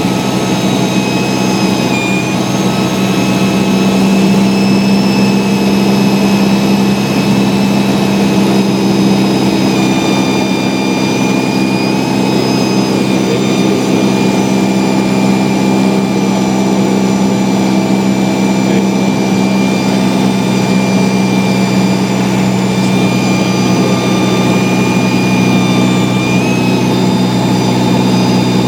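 Light single-engine Cessna's piston engine and propeller running in flight, a loud steady drone heard from inside the cabin, with small shifts in pitch now and then.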